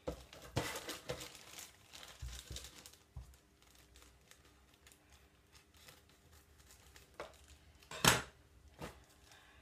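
Thin clear plastic packaging crinkling as it is cut with scissors and pulled away, busiest in the first three seconds, then softer rustling. About eight seconds in, a sharp clack, the loudest sound, as the scissors are put down on the table, with a smaller knock just after.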